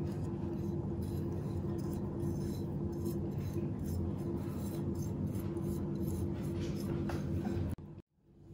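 Light clinks and taps of a small porcelain plate against a glass mixing bowl as seasoning powder is shaken off it onto raw chicken, over a steady low hum that cuts off abruptly near the end.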